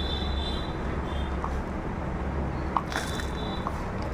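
Steady hiss of heavy rain, with a few faint crackles from hands working potting soil in a plastic basin in the second half.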